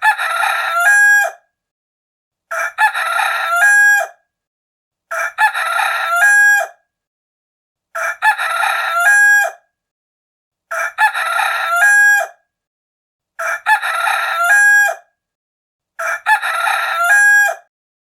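Rooster crowing cock-a-doodle-doo seven times, one crow about every two and a half to three seconds, each ending in a held note. The crows are the same recording repeated.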